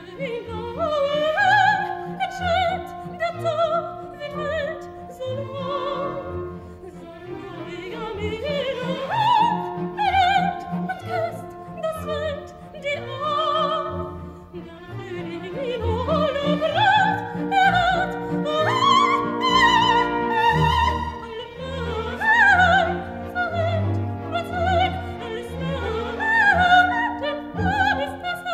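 Coloratura soprano singing a waltz with an orchestra, her high voice moving in phrases with wide vibrato over a pulsing bass line.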